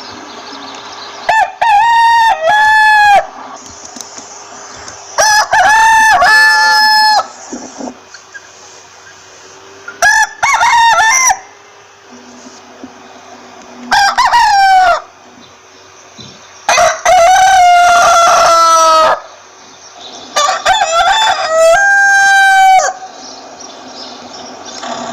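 Rooster crowing again and again: six crows a few seconds apart, each one to two and a half seconds long, the longest near the middle.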